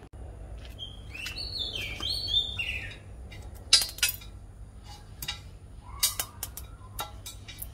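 A bird chirping: a quick run of notes stepping down in pitch, about a second and a half in. Several sharp clicks follow in the second half, over a steady low rumble.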